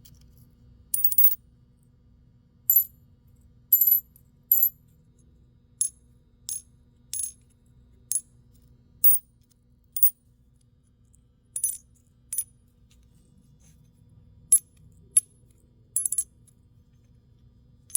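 Silver and clad quarters clinking one at a time, about eighteen sharp metallic strikes at roughly one a second, each leaving a short high ring. The ring is the cue for telling a 90% silver quarter from a copper-nickel clad one.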